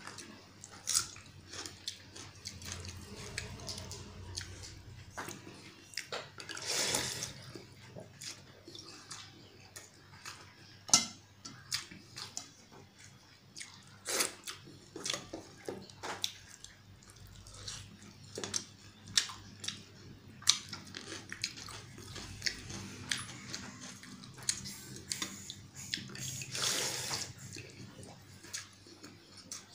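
A hand mixing and scooping pakhala, cooked rice soaked in water, in a steel bowl: wet splashing and dripping, with short sharp smacks and clicks of eating throughout. Two longer wet rushes come about a quarter of the way in and near the end.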